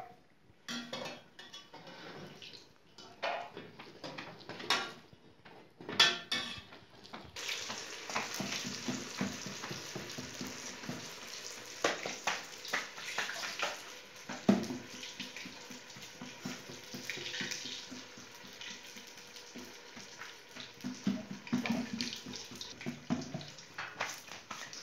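Stuffed flatbreads (bolani) frying in a pot of hot oil, a steady sizzle that comes in about a third of the way through, with knocks and clatter of pots and utensils over it. Before the sizzle, only scattered knocks and taps of dough being handled on a wooden board.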